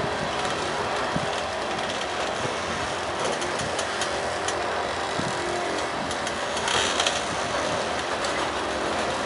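Freight train of covered hopper cars rolling past at close range: steady noise of steel wheels on the rails, with a brief louder clatter about seven seconds in.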